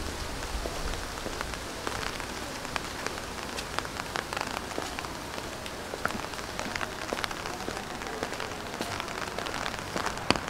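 Steady rain falling on wet stone paving and bamboo, with many separate drops ticking close by and a sharper click near the end.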